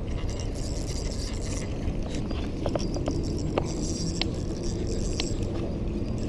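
Steady outdoor rumble and hiss, with a few light, sharp clicks in the middle as a fishing rod and reel are handled.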